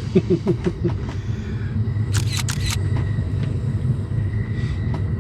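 Amtrak Empire Builder passenger train rolling along, a steady low rumble of wheels on the rails with a few sharp clicks in the first second. About two seconds in comes a brief loud hiss, and a faint high whine runs through the second half.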